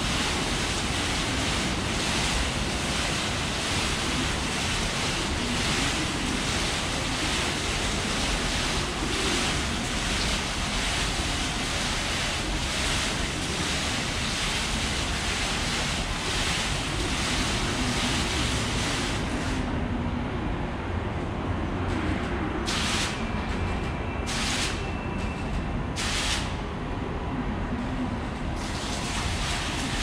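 Water from a Space Printer water clock falling in timed curtains of droplets and splashing into its basin: a steady rushing hiss. The sound turns thinner and softer after about twenty seconds, broken by three brief bursts of splashing.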